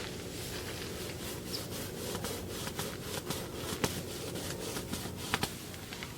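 Dry hay rustling and crackling as flakes are handled and tossed out, with two sharper clicks, one about midway and one near the end.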